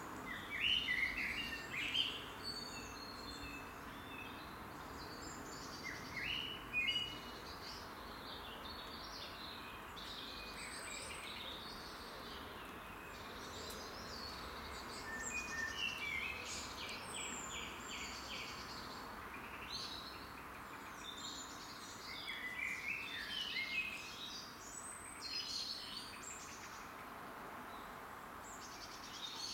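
Several songbirds singing in short, varied phrases throughout, over a steady background hum.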